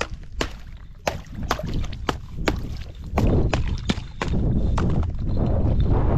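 Sharp clicks and knocks of broken ice and water at the edge of a frozen pool, about two a second, with water sloshing. Low wind rumbles on the microphone, louder from about halfway through.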